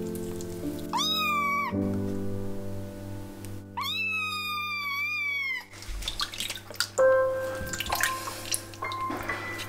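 A 35-day-old kitten meowing twice while held wet in a bath: a short meow about a second in, then a longer, drawn-out meow around four seconds in. After that come water splashing and dripping as it is handled in the sink.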